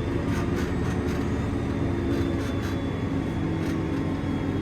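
Tractor engine running steadily under way in fourth gear, an even drone with faint light rattles over it.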